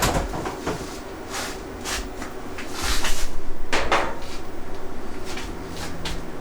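Knocks, clicks and clatter of battery rack parts being handled during assembly, with a louder scraping rush about three seconds in.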